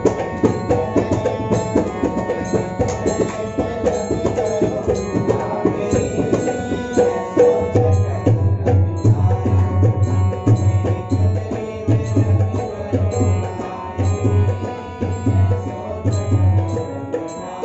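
Live devotional bhajan: a harmonium playing held chords under a man's singing, with tabla coming in with steady, deep bass-drum strokes about halfway through.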